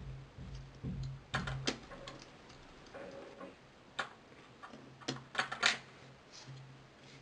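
Irregular small clicks and taps of a plastic pry tool and fingers working on an opened mobile phone's frame and circuit board, with a louder cluster of clicks about five and a half seconds in.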